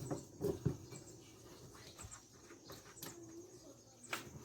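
Faint clicks and knocks of a 13 mm wrench and a washing machine's drive pulley being worked loose and off its shaft: a few strokes in the first second, then a sharper click near the end.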